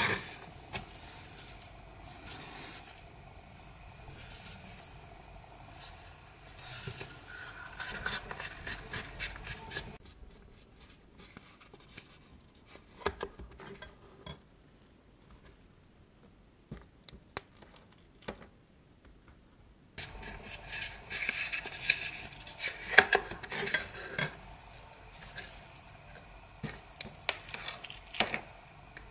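A clear plastic set square sliding and scraping over a cutting mat and a flattened cardboard toilet roll tube, with light taps and clicks as it is set down and shifted. It goes quieter, with only scattered small clicks, for about ten seconds in the middle.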